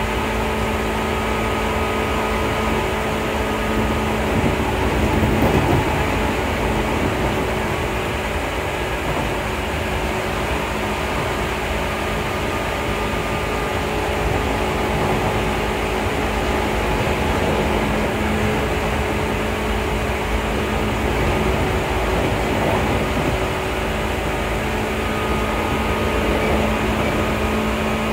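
Seibu 2000 series electric train running at speed, heard from inside the passenger car: the steady hum of its field-chopper-controlled traction equipment over the rumble of wheels on rails.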